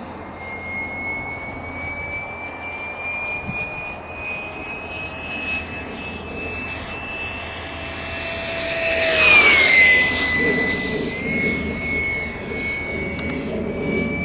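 Electric ducted fan of a Yellow Aircraft Stingray RC jet whining at high throttle, slowly rising in pitch as it approaches. About nine seconds in it makes a fast, loud low pass with a rush of air, the whine dropping sharply in pitch as it goes by, then it carries on further off.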